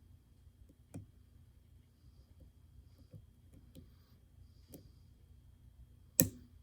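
Lock pick and tension wrench working the pins inside an Abus euro profile cylinder: scattered faint metallic clicks, then one sharp, much louder click near the end.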